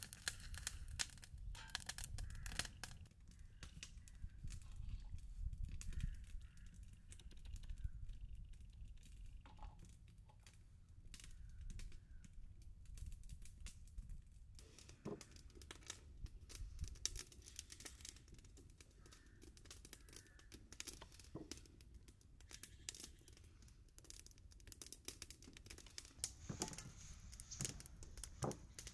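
Irregular crinkling and rustling with scattered light clicks and knocks of things being handled, over a faint low rumble.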